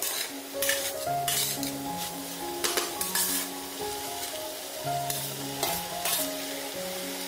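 Chicken and carrot strips sizzling in a hot wok, stirred and tossed with a slotted metal spatula in irregular scraping strokes. Light background music plays underneath.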